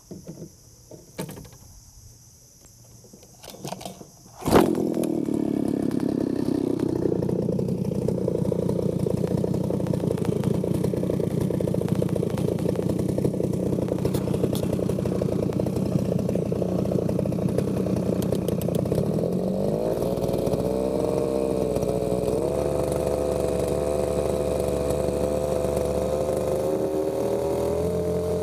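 Small 3 hp outboard boat motor starting abruptly about four and a half seconds in, then running steadily. A little past halfway through it is throttled up toward full speed, its pitch rising and holding higher.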